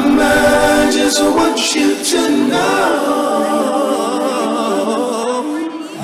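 A male vocal group singing in close multi-part harmony with no instruments behind it, an a cappella passage of a slow R&B ballad; the bass and beat drop out right at the start.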